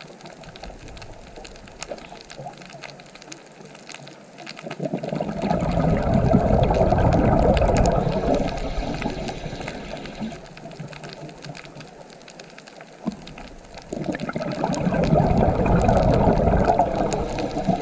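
Ocean waves washing in: two surges of surf, the first building about five seconds in and fading by ten, the second building near fourteen seconds and still going at the end, over a steady wash of water.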